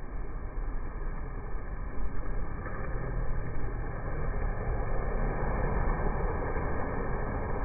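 Beach ambience: wind rumbling on the microphone over the wash of the sea, steady but with uneven gusts in loudness.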